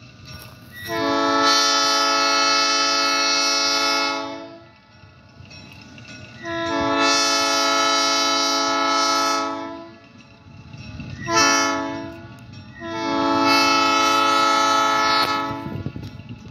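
Diesel locomotive air horn sounding the grade-crossing signal: two long blasts, one short, then one long, each a chord of several tones. The train's low rumble fills the gaps between the blasts.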